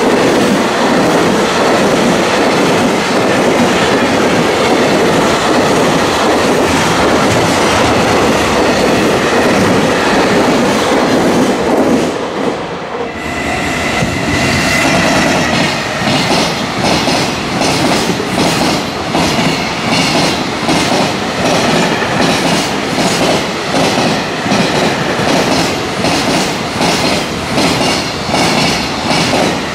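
Container freight trains passing close by. The first train's wagons roll past with a steady heavy rumble. After a short break about twelve seconds in, a second freight train's wheels clatter over the rail joints, a regular clack about twice a second, with a brief high whine as it comes in.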